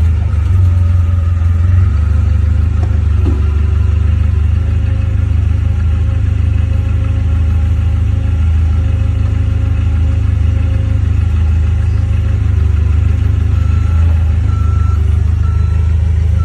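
Forklift engine running steadily under load; near the end its reversing alarm beeps about once a second.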